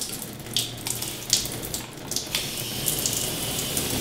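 Water spraying from a Delta In2ition handheld shower head onto tile, a steady hiss with a few sharper spatters in the first two seconds as the spray setting is changed.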